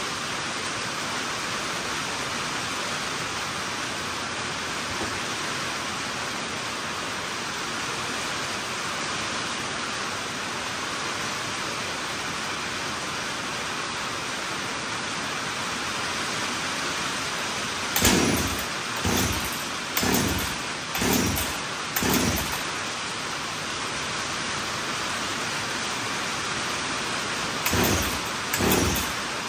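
Steady rain on a tin shop roof. About eighteen seconds in, a rebuilt two-stroke Jonsered 2077 chainsaw is pull-started: five quick pulls of the recoil starter about a second apart without the engine running, then three more near the end.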